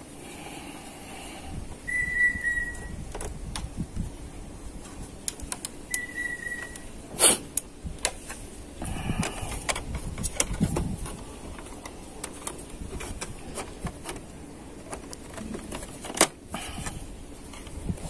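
Small metal clicks and knocks as a screw is taken out and parts are handled on an all-in-one PC's steel chassis, with two louder knocks, one a little before the middle and one near the end. Two brief, steady high whistle-like notes come in the first third.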